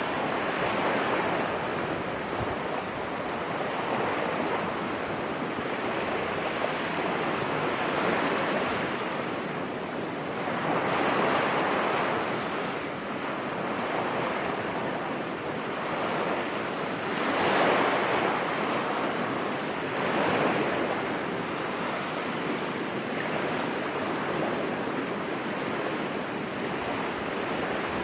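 Sea waves breaking on a beach: a continuous wash of surf that swells louder every few seconds as bigger waves come in.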